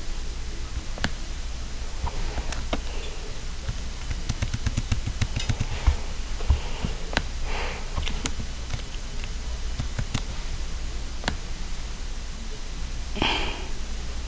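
Steady low background hum with scattered faint clicks and taps, a quick run of low pulses around the middle, and two short rustles, one in the middle and one near the end.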